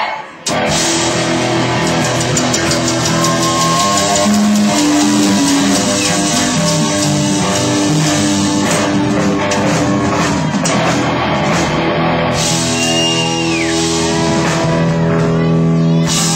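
Live rock band playing loud: electric guitars, bass and drum kit come in together suddenly about half a second in and play on steadily.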